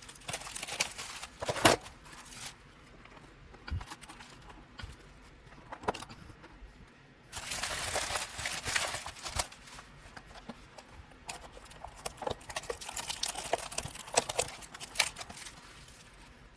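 Objects being handled: scattered clicks and knocks, one sharper knock near the start, with stretches of rustling and crinkling.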